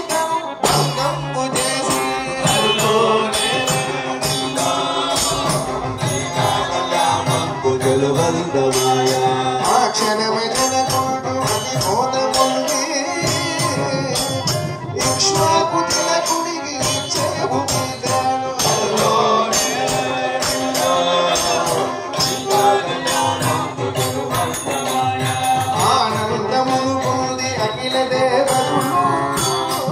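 Devotional bhajan singing by a group of voices, with a steady jingling percussion beat.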